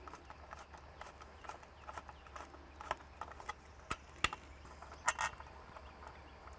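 Irregular light clicks and taps of hand tools and hardware while an exterior security light fixture is screwed into place, with a few sharper clicks past the middle.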